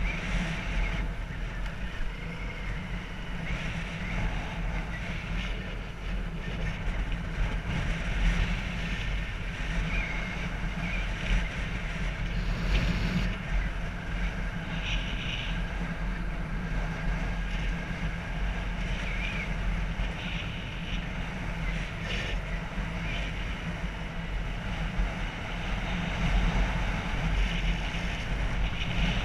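Motorbike engine running under way, heard from a camera mounted on the moving bike, with steady wind noise on the microphone.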